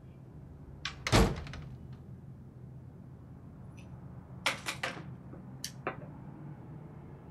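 A room door closing with a heavy thunk about a second in, followed by a few short, sharp clicks and knocks a few seconds later, over a low steady room hum.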